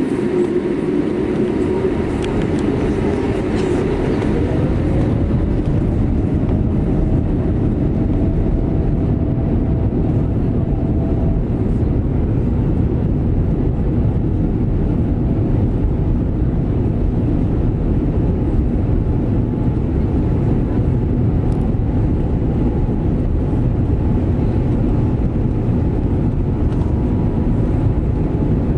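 Boeing 787-8 jet engines running at takeoff power: a loud, steady rumble, with a whine that rises in pitch a few seconds in as the engines spool up.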